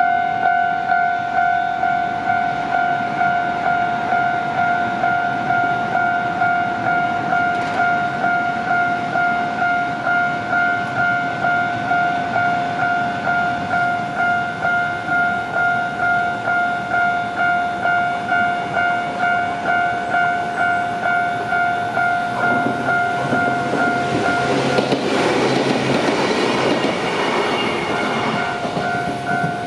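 Japanese level-crossing warning bell ringing with a steady two-tone clang, about two strokes a second. About three-quarters of the way through, a Shizuoka Railway A3000 series electric train passes over the crossing, its wheels rumbling and clattering on the rails for several seconds while the bell keeps ringing.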